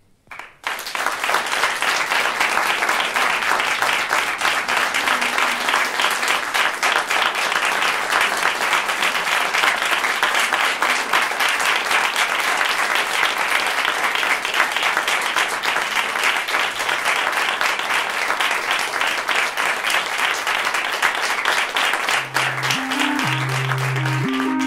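Audience applauding, breaking out suddenly about half a second in and holding steady. Near the end, low-pitched music notes come in over the clapping.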